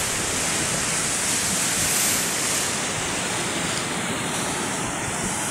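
Ocean surf breaking and washing over rocks close by: a steady rush of churning white water that swells briefly about two seconds in.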